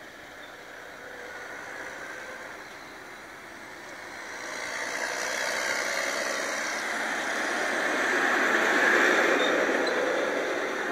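Blue tractor towing a large high-sided trailer drives up and passes close by: engine and tyre noise grows from about four seconds in, is loudest at about nine seconds as it goes by, then eases slightly.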